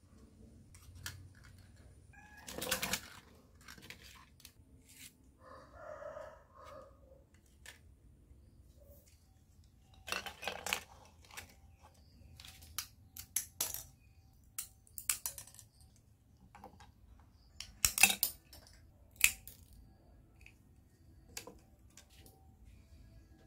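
Thin aluminium tubes rolled from drink cans clinking and tapping against each other and a hard board as they are set down and arranged: scattered light metallic clicks, loudest as a quick cluster near the end. A short pitched chirp is heard about a quarter of the way in.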